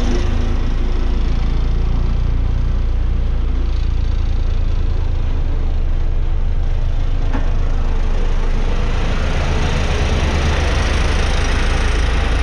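Diesel engine of a 2005 Ingersoll Rand SD-100D single-drum roller running steadily as the machine drives over dirt. The sound turns duller as it moves away and fuller again near the end as it comes back close.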